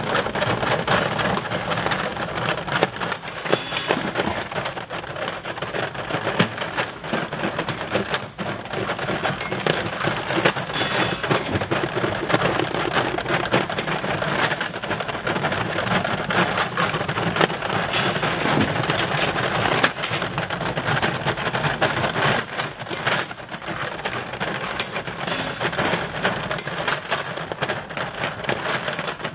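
Magnetic incline conveyor dragging small stamped steel parts up out of a heaped hopper. The parts make a dense, continuous clatter and clinking as they rattle against each other and the textured metal bed.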